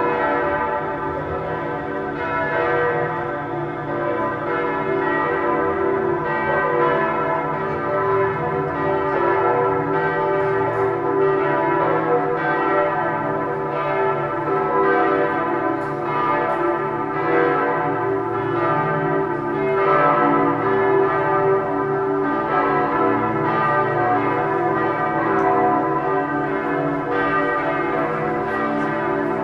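Bremen Cathedral's large church bells pealing, several bells swinging and striking over one another in a continuous, overlapping ring.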